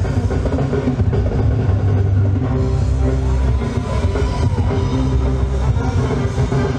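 Music with a heavy bass and drums, steady throughout, with held tones and a gliding tone in the middle.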